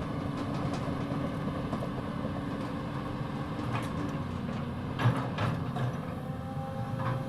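Cat 320D hydraulic excavator's diesel engine running steadily under work, with a few sharp knocks from the machine; the loudest knock comes about five seconds in.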